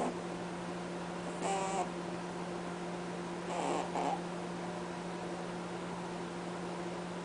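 Pet rabbit honking as it sleeps: a short honk about a second and a half in and a double honk near four seconds in, over a steady low hum.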